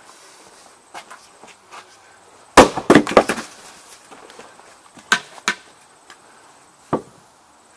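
Axe chopping firewood on a wooden chopping block: a quick cluster of sharp wooden knocks about two and a half seconds in, the loudest part, followed by single knocks of split pieces being handled, two about five seconds in and one near seven.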